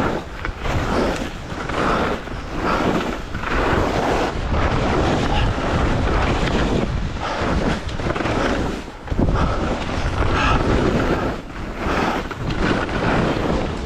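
Wind rushing over a helmet camera's microphone while skis hiss and scrape through snow, surging with each quick turn, about one to two surges a second.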